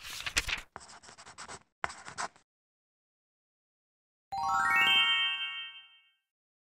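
Paper rustling and tearing in three short scratchy bursts. After a pause, a bright chime sound effect about four seconds in: a quick run of notes stepping upward that rings on and fades over about two seconds.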